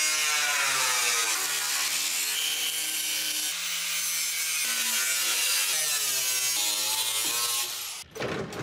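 DeWalt angle grinder working a rusty steel Plymouth Barracuda body panel, throwing sparks: a steady hiss of the disc on metal under the motor's whine, which shifts in pitch as the load changes. It stops abruptly about eight seconds in.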